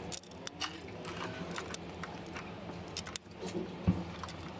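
Light metallic clicks and clinks of steel roller rocker arms being handled and snapped onto their hydraulic lifters in an open diesel cylinder head. A handful of sharp clicks come at irregular moments over a faint steady hum.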